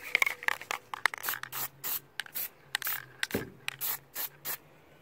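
An aerosol can of Plasti Dip rubber coating sprayed in short, quick spurts of hiss, about three a second, with a dull knock a little past the middle.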